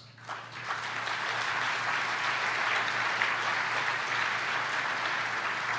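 Audience applauding, swelling up within the first second and then holding steady.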